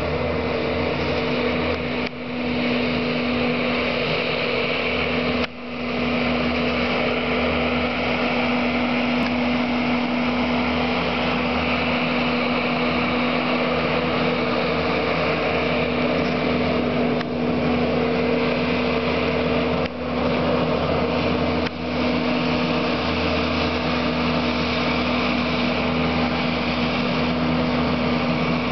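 Bobcat skid-steer loader's diesel engine running steadily with a strong, even hum, dipping briefly in level a few times.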